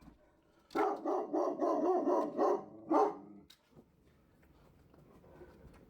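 Dog barking in a quick run of about eight barks lasting two seconds, then one more bark a moment later.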